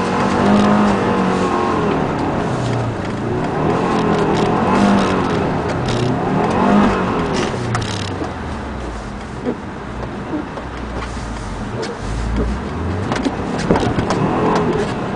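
2007 Subaru Forester XT's turbocharged flat-four engine revving up and down repeatedly as the car spins donuts on snow, then running lower and steadier in the second half.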